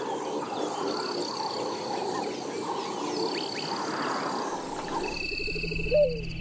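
Dense chorus of frogs calling at dusk, with a high thin trill recurring every couple of seconds. About five seconds in the chorus drops away and documentary music with a low bass comes in.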